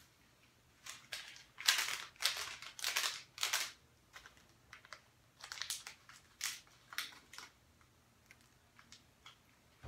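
Food packaging being handled, crinkling and rustling in a run of loud bursts about two seconds in, then in shorter scattered crinkles.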